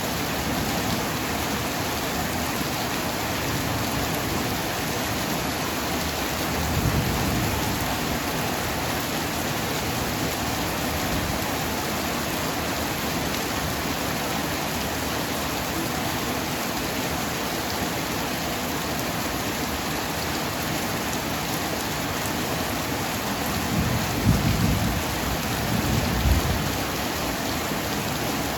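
Heavy tropical downpour, a steady hiss of rain. Thunder rumbles low about seven seconds in and again twice near the end, the later rumble the loudest.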